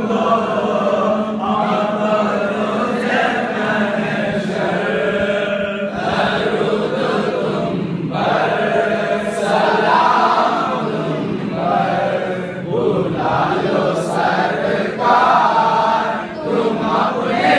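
Male voice chanting a naat, an Islamic devotional poem, melodically into a microphone, without instruments, over a steady low drone.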